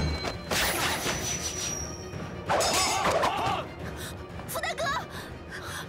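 Martial-arts fight soundtrack: dramatic music under a series of sudden hits and crashes, with shouting fighters.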